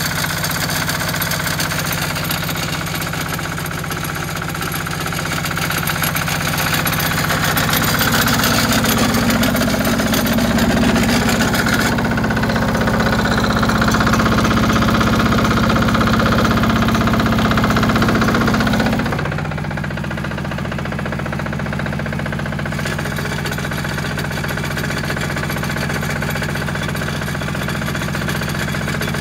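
Garden tractor engine running while it pulls a car chassis on a tow strap. About eight seconds in it speeds up and runs faster until about nineteen seconds in, then drops back to a lower, steady speed.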